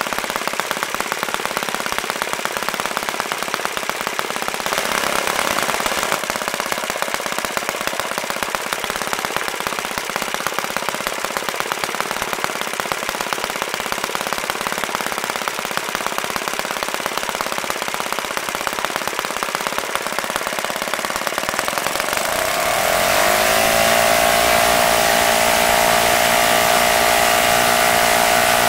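OS FS-120 Surpass four-stroke single-cylinder glow engine running at high speed while turning a 15x8 propeller, with a rapid, steady firing rattle and no bearing noise, on freshly replaced bearings. About 23 seconds in, the note glides up to a higher, steadier pitch and gets louder as the engine is adjusted by hand.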